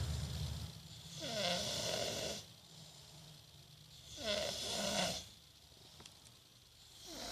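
A two-year-old toddler snoring in his sleep: two long snoring breaths a few seconds apart, each with a wavering pitch, and a third starting near the end. The parent is unsure whether the noisy breathing is sinus-related.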